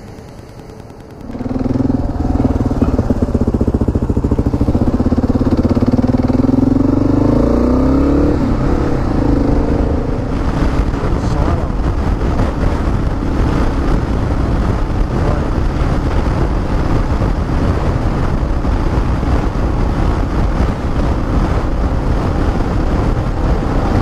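Motorcycle riding on the open road. From about a second in, the engine note rises as the bike speeds up, then settles into a steady rush of wind on the microphone over the engine at highway speed.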